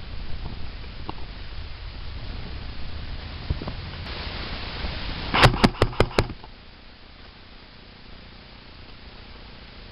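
A quick run of about five sharp knocks or clacks, a little over halfway through, over a steady rustling hiss.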